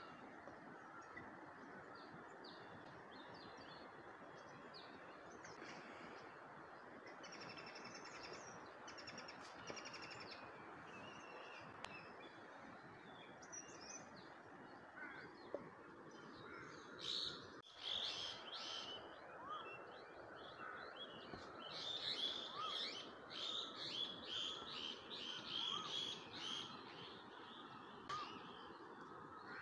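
Small birds chirping and twittering in quick repeated phrases, busiest in the second half, over a faint steady hiss.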